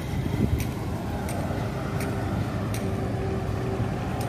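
Steady motor-vehicle rumble, with faint ticks about every two-thirds of a second.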